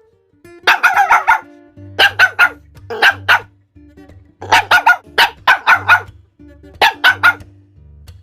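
A dog barking in quick runs of three or four barks, about six runs, over a steady low electronic music backing.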